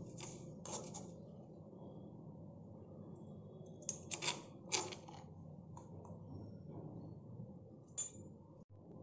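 Steel spoon scraping and clicking against the inside of a stone mortar while scooping out coarsely crushed spice powder: a couple of short scrapes at the start, a quick cluster of three or four about four seconds in, and one more near the end.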